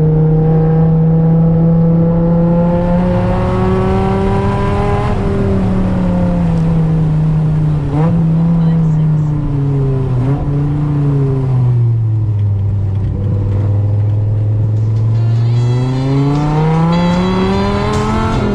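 Dodge Viper GTS V10 through a custom side exhaust with headers, heard from inside the cabin: it holds steady, then falls in pitch as the car slows, with two short blips along the way. After running low for a few seconds it climbs in pitch again under acceleration near the end.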